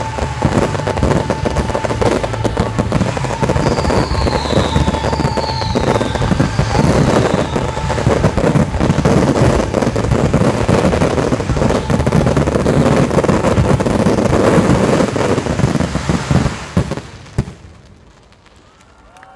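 Fireworks finale barrage: a dense, continuous run of shell bursts and crackling, with two short falling whistles about four and five seconds in. The barrage dies away about seventeen seconds in.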